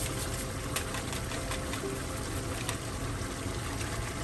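Chicken pieces simmering in broth in a nonstick pan on a gas burner: a steady bubbling hiss with a few faint clicks.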